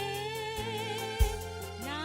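Swahili gospel song: a voice holds one long sung note with vibrato over steady instrumental backing, with a single drum beat a little over a second in.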